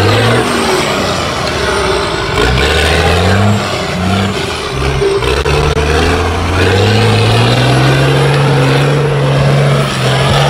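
Engine of an off-road 4x4 competition vehicle revving in short, uneven surges, then held steady at higher revs from about six and a half seconds in.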